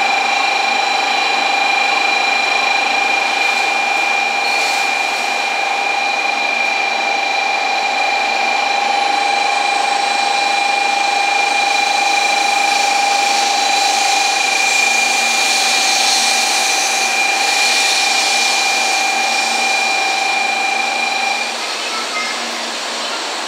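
Steady electronic buzzer on a Shinkansen platform, one unchanging tone sounding for about 21 seconds and then cutting off suddenly, over the steady hiss of the station and the N700-series train alongside.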